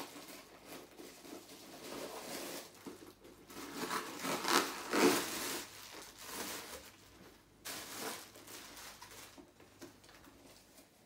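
Plastic packaging wrapping rustling and crinkling as it is pulled out of a new handbag, loudest about four to five seconds in, with a short burst near eight seconds.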